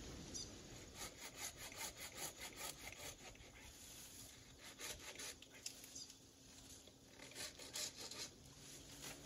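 Hand saw cutting through the branches of an overgrown shrub, in runs of quick back-and-forth strokes, about three a second, with short pauses between runs.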